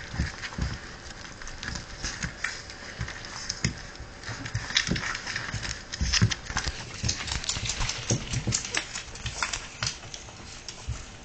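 Puppies' claws clicking and paws scrabbling on a hardwood floor as they wrestle, an irregular patter of taps and scuffles that grows busier and louder about six seconds in.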